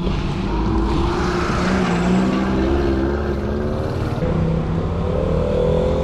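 A motor vehicle's engine running close by on the street, its pitch rising slowly and steadily as it speeds up.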